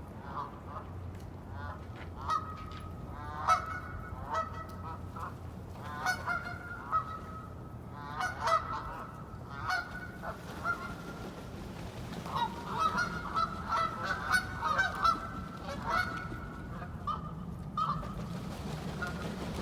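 A flock of wild waterfowl calling: many loud quacking calls, singly and overlapping, coming thickest a little past the middle.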